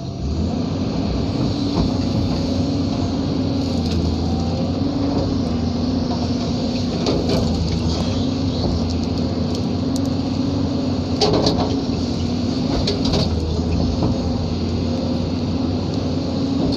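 Excavator's diesel engine running steadily under load, heard from inside the cab, with a few sharp knocks from the working machine along the way.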